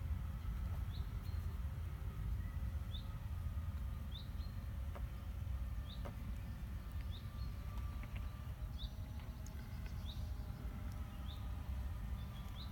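A small bird calling over and over with short, high, upward-flicking chirps, about one every second or so, over a steady low rumble.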